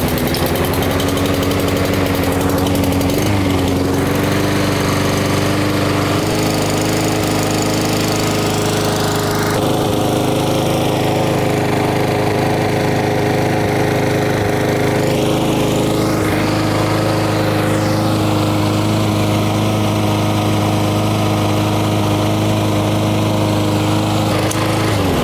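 Honda engine on a walk-behind lawn mower running at a steady speed, shifting slightly in the first few seconds and then holding even. It no longer revs up and down: the surging that the carburetor rework was meant to cure is gone.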